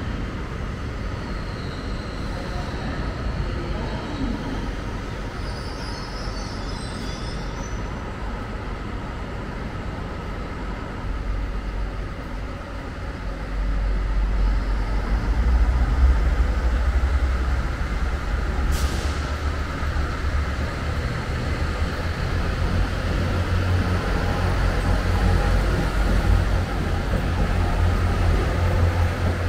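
Railway station platform sound with a steady hum. From about halfway through, the deep steady rumble of a train's engine running at the platform takes over. There is a short hiss of air a little later.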